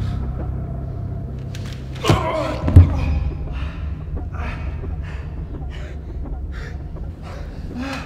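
Fight-scene sound over a low rumbling drone: a sharp hit about two seconds in, then a heavy thud just after, followed by a run of short, hard breaths.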